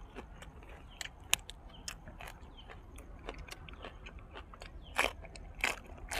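Close-up crunching and biting of a person chewing crisp fried dried squid and raw vegetables, with irregular sharp crunches; the loudest come about a second in and again around five seconds.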